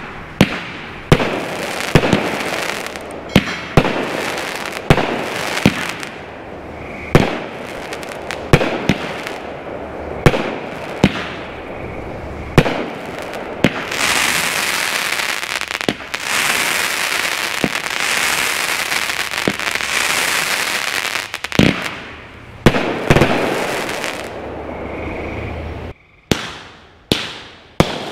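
A Black Scorpion 16-shot, 200-gram vertical firework cake firing: a rapid string of sharp launch thumps and bursts, roughly one a second, with a long stretch of continuous crackle in the middle as the glittering effects break.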